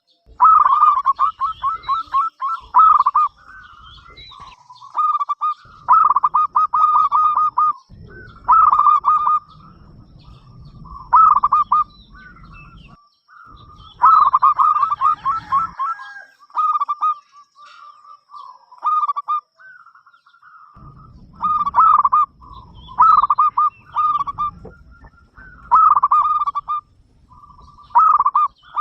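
Zebra dove cooing: repeated phrases of rapid, stuttering notes, each phrase a second or so long with short pauses between.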